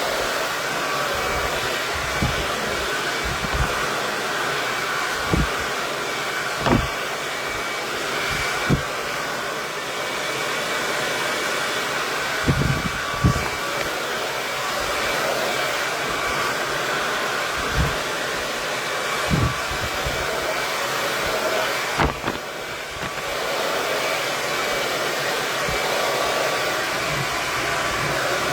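KISS 1875-watt Pro Tourmaline Ceramic hair dryer running steadily: a rushing blast of air with a faint motor whine. Irregular low thuds come every second or two over it.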